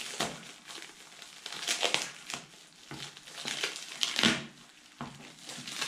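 Black plastic wrapping on a parcel crinkling and tearing as it is cut open with a small blade, in irregular bursts, the loudest about two seconds in and again just after four seconds.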